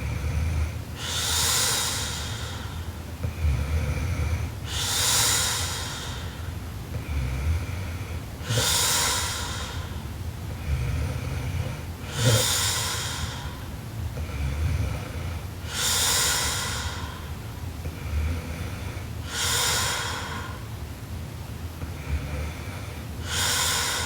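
A sleeping woman snoring heavily and rhythmically. Each breath is a low rumbling snore followed by a loud breathy rush of air, repeating about every three and a half seconds, seven times.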